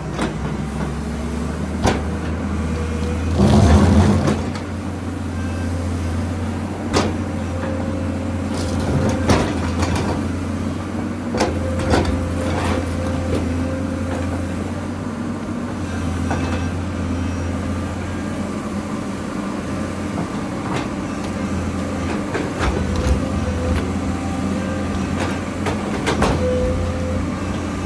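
Excavator diesel engine running steadily under working load, with repeated sharp knocks and clanks as it clears large rocks. The loudest burst comes about three and a half seconds in.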